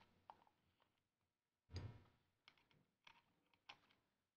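Faint scattered clicks and taps of small metal nuts and washers and a plywood bulkhead being handled, with one duller knock a little under two seconds in.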